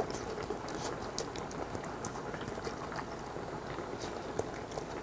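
Pan of budae-jjigae (Korean army stew) boiling: steady bubbling with many small scattered pops, and close chewing.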